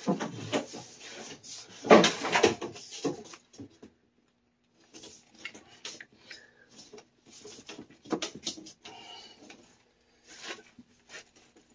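Handling noise as PEX water tubing is moved and set onto a brass ball valve: irregular knocks, clicks and rustles, loudest about two seconds in and again about eight seconds in.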